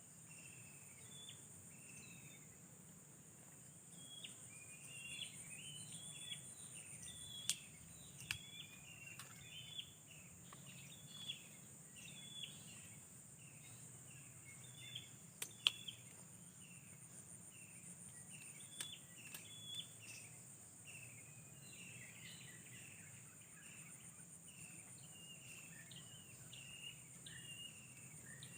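Outdoor ambience: a steady high-pitched insect drone, with a bird giving many short, quick chirping notes over and over and a few sharp clicks about 7, 8 and 15 seconds in.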